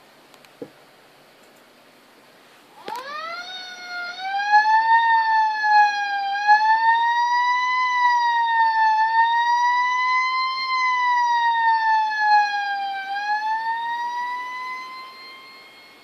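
Fire truck siren wailing. It sweeps up sharply about three seconds in, then slowly rises and falls in pitch, and fades out near the end.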